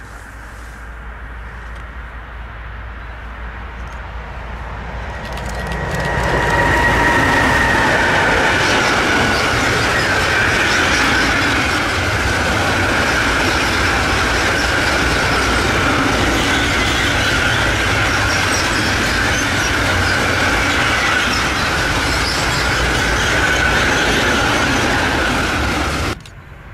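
A train approaching and then passing close by for about twenty seconds: steel wheels rolling on the rails with a high-pitched wheel squeal. The sound builds over the first few seconds and cuts off suddenly near the end.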